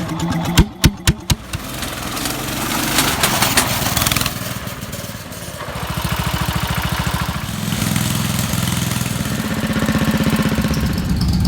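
Small gasoline engine of a mini bike: a few sharp pops in the first second and a half, then the engine running with an even firing beat, its speed and level rising and falling.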